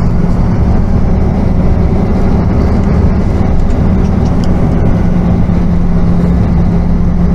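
Semi-truck's diesel engine running steadily at low speed, heard from inside the cab as a constant low rumble with a steady hum.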